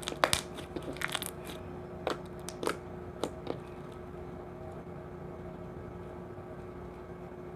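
Dough-like slime being squeezed and poked by hand, giving a quick run of sharp clicks and pops during the first three and a half seconds, then only a faint steady hum.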